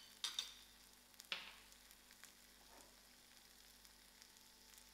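Faint sizzle of chana (chickpeas) frying in oil in a pan, with a few light clicks in the first second and a half.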